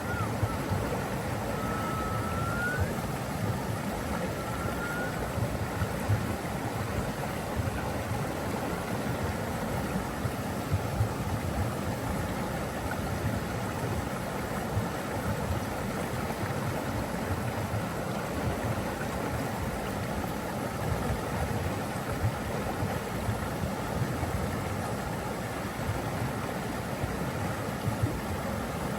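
Steady rush of flowing water, heaviest in the low range. Two faint rising whistles in the first few seconds.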